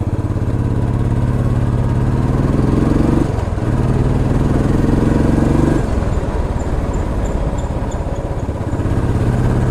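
Royal Enfield Classic 350's single-cylinder engine and exhaust under way, its pitch rising twice under acceleration with a short break about three seconds in, then falling off to a lower, steadier note about six seconds in.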